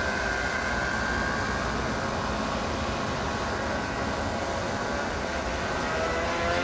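Radio-controlled airboat's motor and air propeller running as the boat crosses the water, a pitched whine over a steady hiss. The whine fades in the middle and grows louder again near the end as the boat turns back toward the microphone.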